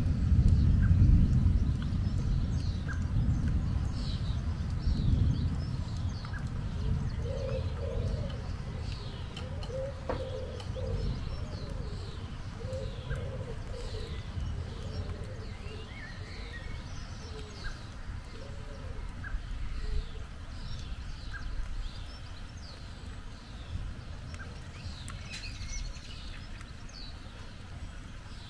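Thunder rumbling low and dying away over the first few seconds. Small birds chirp throughout, and a pigeon coos a string of repeated coos through the middle.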